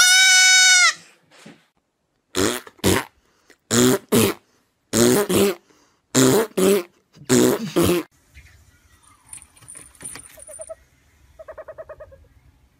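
A baby goat gives one high, loud bleat lasting about a second. Then come five pairs of short, harsh sounds, about one pair a second, and a faint quick pulsing near the end.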